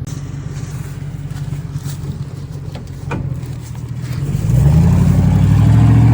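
An engine running steadily, then picking up revs and running louder from about four and a half seconds in.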